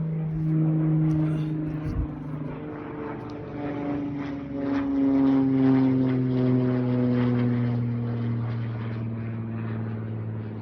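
Small propeller airplane flying overhead, a steady engine drone whose pitch drops gradually as it passes.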